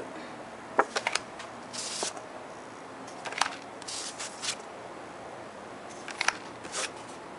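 Sheets of scrapbook paper rustling and flapping as they are handled and shuffled through, in short scattered bursts.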